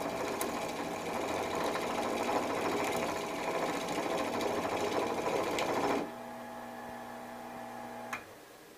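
Rikon 70-100 mini lathe's half-horsepower motor running while a knife blade held on the tool rest scrapes a spinning wooden branch, a dense scraping over a steady motor hum. About six seconds in the cutting stops and only the motor hum remains; near the end a click, and the lathe goes quiet as it is switched off.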